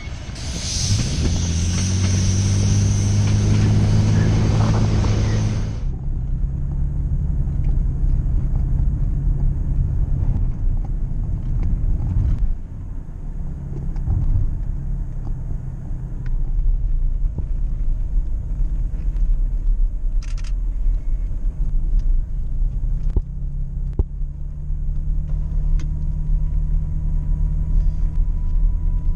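Engine drone and road rumble of a vehicle driving steadily. A louder, brighter rushing noise fills the first six seconds and then stops abruptly.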